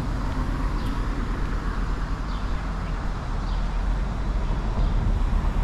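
Steady city street traffic noise with a low rumble, and a few faint short high chirps every second or so.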